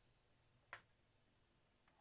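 Near silence broken by a single short click about three-quarters of a second in.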